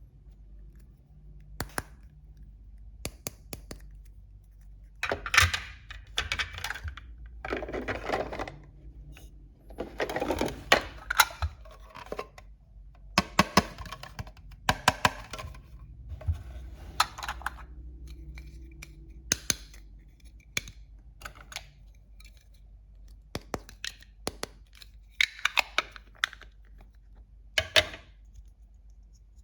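Small plastic toy kitchen pieces clicking and clattering as they are handled and set down, with bursts of rustling in between.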